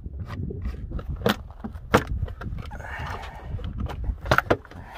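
Hand tools and metal parts clinking a few separate times, with low rumbling handling noise between the clinks.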